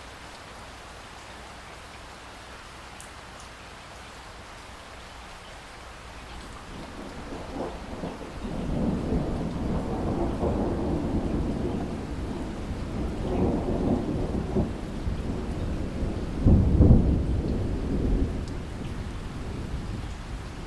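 Steady rain falling, with a long roll of distant thunder that builds up about a third of the way in, rumbles in several swells and peaks loudest near the end before fading.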